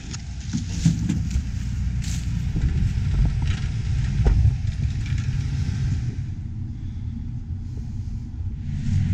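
John Deere S670 combine running while it harvests corn: a steady low rumble with a few light clicks, sounding duller for a couple of seconds near the end.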